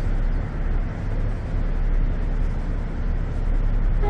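Steady low rumble of harbour and city background noise, from engines and traffic. A horn begins sounding at the very end.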